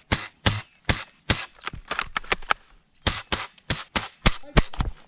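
An airsoft gun firing a quick string of single shots, sharp pops about two to three a second, with a short break a little past the middle.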